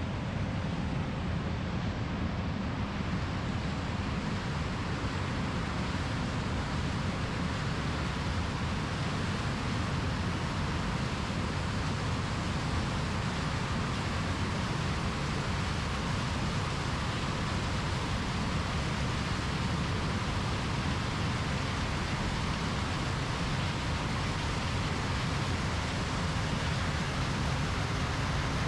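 John Deere combine harvester running steadily while harvesting corn, its engine and threshing noise a constant rumble with a broad hiss.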